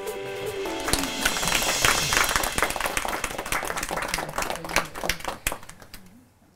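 Intro music ends in the first second, then a small audience applauds, dying away over the last couple of seconds.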